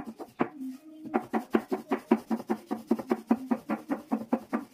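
Small wooden rolling pin knocking rhythmically on the board as dumpling wrappers are rolled out, about six knocks a second, with a brief pause about half a second in.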